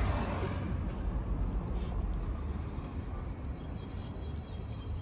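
A small songbird singing a fast trill of short, evenly repeated high chirps, starting about three and a half seconds in, over a steady low outdoor rumble.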